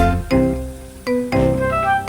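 Background music: an upbeat tune of short pitched notes over a steady beat.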